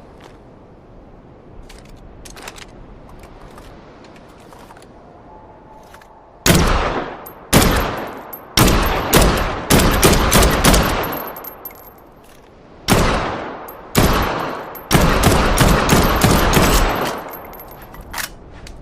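Sporting rifle gunshots, each with a sharp crack and a decaying echo. Three single shots about a second apart start about six and a half seconds in, followed by a quick string of shots. After a short pause come two more single shots, then a rapid run of shots lasting about two seconds. Faint clicks are heard before the first shot.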